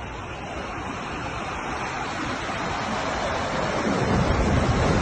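Fast-flowing muddy floodwater rushing in a torrent, a steady rush of water that grows louder, with a deeper rumble coming in about four seconds in.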